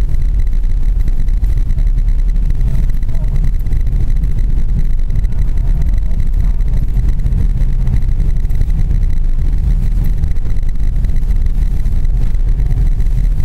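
Suzuki Grand Vitara driving through deep snow, heard from inside the cabin: a steady low rumble of engine and tyres.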